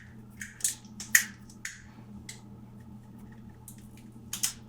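A few short, sharp scrapes and clicks of a plastic mains plug being handled and pressed, with a faint steady low hum underneath.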